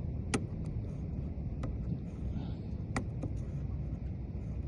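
About five sharp metallic clicks at irregular intervals, a Lishi pick working the wafers of a Ford F250 door lock, over a steady low background noise.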